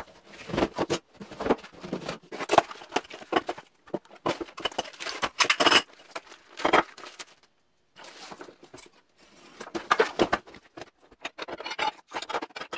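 Packing material rustling as a cardboard shipping box is unpacked, with bubble wrap and paper handled and aluminium parts and small hardware clinking as they are set down. The handling comes in irregular bursts with a short pause a little before halfway.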